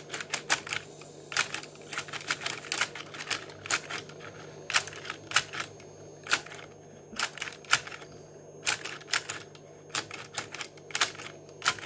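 Plastic clicking and tapping from an Akedo Warriors figure worked on its controller base, the kick-fighter's leg snapping out and striking a small training-dummy figure. The clicks come in short bursts of several quick ones with brief pauses between.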